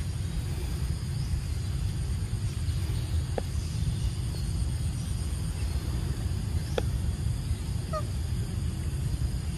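Outdoor ambience: a steady low rumble with a faint steady high hum above it. A few faint sharp clicks come about three and a half seconds apart, and there is a short two-note squeak near the end.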